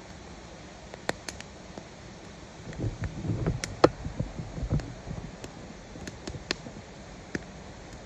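Wood campfire crackling: scattered sharp pops over a steady hiss, with a muffled low rumble for a couple of seconds near the middle.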